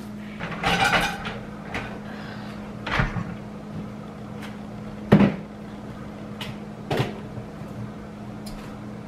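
Kitchen clatter: about six separate knocks and bumps of things being handled while tidying, the loudest about five seconds in, over a steady low hum.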